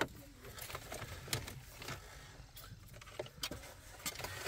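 Faint scattered clicks and light knocks of the head unit, brackets and plastic dash trim being handled as they are put back in place.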